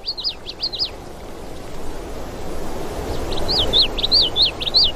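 A songbird singing: a short run of quick, sharp chirps, each rising then falling, and a second longer run from about three seconds in. Under it is a steady rushing background that grows louder.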